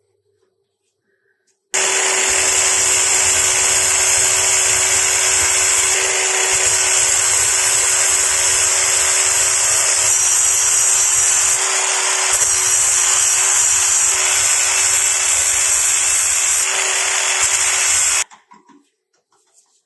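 Angle grinder running and grinding the steel head of an axe, a steady high hiss with a constant whine. It starts abruptly about two seconds in and stops abruptly near the end.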